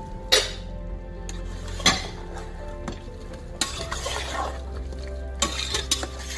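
A metal spatula clanking against an aluminium cooking pot and scraping as chicken pieces and chopped tomatoes are stirred, with a sizzle of frying beneath. There are sharp clanks about a third of a second in, near two seconds, and a cluster near the end, with a longer stretch of scraping around four seconds.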